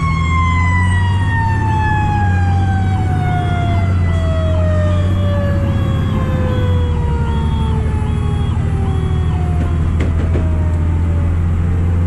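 Fire truck siren winding down, its single tone falling slowly in pitch over about nine seconds until it fades out. Under it is the steady drone of the 2003 Pierce Dash's diesel engine, heard from inside the cab.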